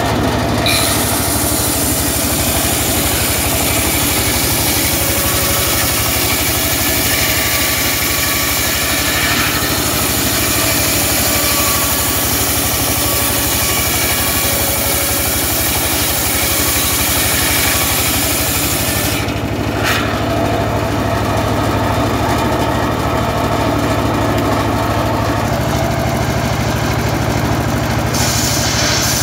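Engine-driven homemade circular saw bench running steadily, its blade ripping a wooden plank. The cutting hiss stops about two-thirds of the way through, leaving the engine's drone and the blade spinning free, with a short touch of cutting just after, and cutting starts again near the end.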